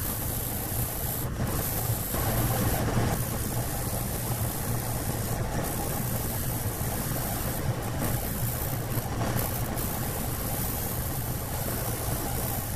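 Reciprocating spindle sander running with a steady motor hum, its sanding drum rubbing against the edge of a wooden fretwork panel held against it.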